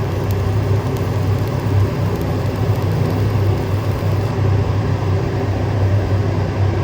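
Steady workshop machinery noise: a strong, even low hum under a broad hiss, with no breaks or impacts.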